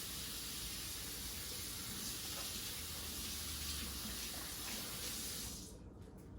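Kitchen tap running steadily into a sink, shut off near the end.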